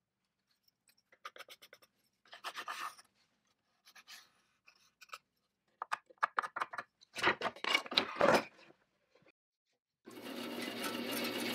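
Clicks, scrapes and a few sharp knocks of metal parts being handled. About ten seconds in, the triple-piston air motor of an Ingersoll-Rand pneumatic circular saw starts up and runs with a fast, even clatter.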